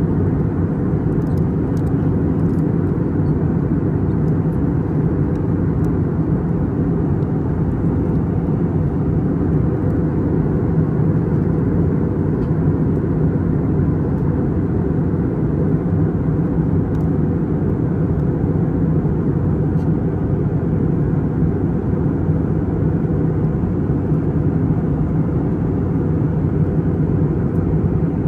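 Steady, loud drone inside the cabin of an Airbus A320neo in flight: engine and airflow noise, deep and unchanging, with a low hum.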